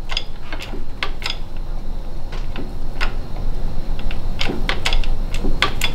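Irregular sharp metallic clicks and ticks from a shop press and the steel piston and connecting rod seated in it, as a wrist pin is pressed through; the clicks come thicker in the second half, over a steady low hum.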